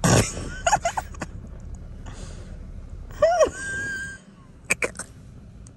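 A person's stifled laughter: a sharp gasp at the start, then short squeaky held-in giggles, with a few clicks near the end.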